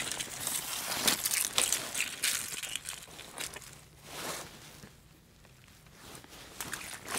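Irregular crunching and rustling handling noises, thickest in the first three seconds, with a softer swell about four seconds in and a few more crunches near the end.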